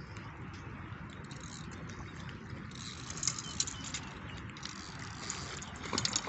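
A hooked fish being played on a spinning rod: scattered light clicks and ticks over a steady outdoor rush, then a splash about six seconds in as the fish thrashes at the surface.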